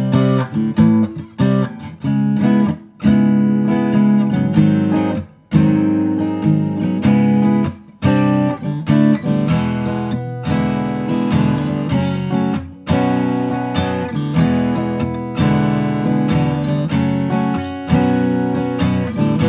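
Acoustic guitar with a Sitka spruce top and desert ironwood back and sides, strummed in rhythmic chords with a deep, full bass, the strings briefly damped between some strokes.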